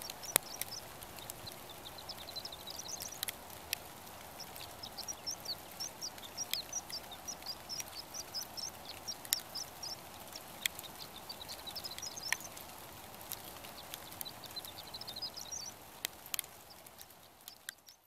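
Small songbirds twittering: clusters of rapid, high chirps that come and go, over a steady faint hum, with scattered sharp clicks.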